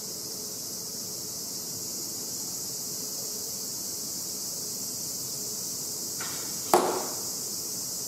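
A kyudo arrow strikes the paper target with one sharp, loud crack about three quarters of the way through. Cicadas drone steadily throughout.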